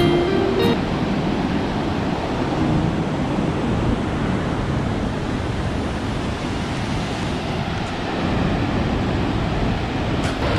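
Water from the dam's open spillway gates rushing steadily down the gate faces and over a low weir. Background music cuts off about a second in.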